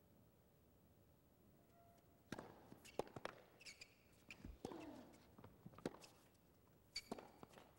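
Faint tennis rally on an indoor hard court: sharp racket-on-ball strikes and bounces at uneven intervals, beginning about two seconds in, with a few short high shoe squeaks between the shots.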